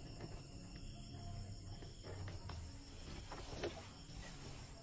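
Quiet room tone with faint rustling of cloth and a few small ticks as fabric and pins are handled at the sewing machine; the machine is not running.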